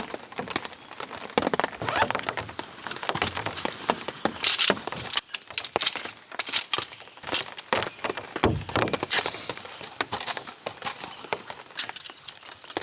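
Camping gear being handled and moved into a tent: irregular clicks, knocks and rustles, with rain pattering.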